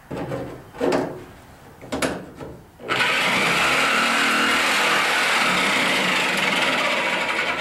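Handheld electric sheet-metal shear cutting through the steel floor pan of a 1985 Chevy K10 pickup: three short bursts in the first three seconds, then running steadily from about three seconds in.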